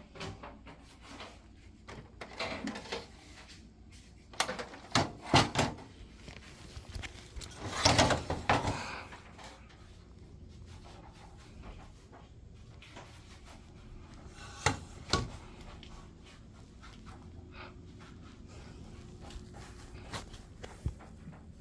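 Scattered knocks and clatter from something being handled, in a few short clusters with a longer rattling stretch a third of the way in, over quiet room tone.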